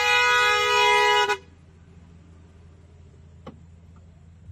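Car horn held in one steady blast that cuts off about a second and a half in.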